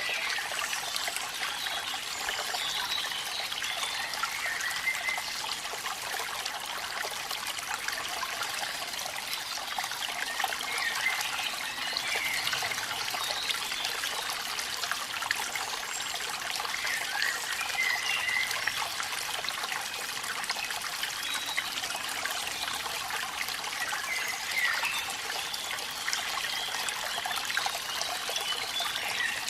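Water trickling and splashing steadily at a small waterfall, with a light gurgle now and then and almost no deep rumble.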